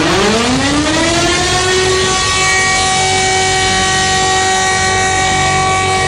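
Emergency alert alarm built from sound effects: a siren winds up in pitch over about two seconds and then holds steady, layered over a continuous buzzing alarm tone.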